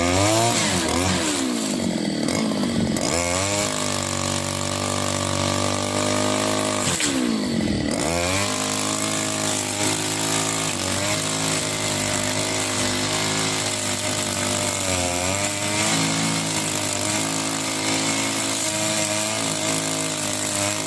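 Furman two-stroke brush cutter engine running at high revs. The revs dip and recover twice, in the first two seconds and again about seven to eight seconds in, then hold steady.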